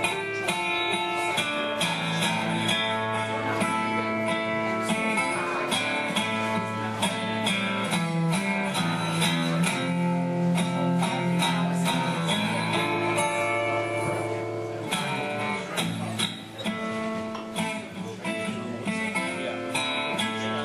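Resonator guitar with a round metal cover plate, played solo: a steady run of picked notes and chords, with a softer, sparser passage near the end.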